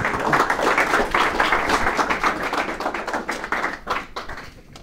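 Audience applauding, a dense patter of claps that thins and fades out near the end.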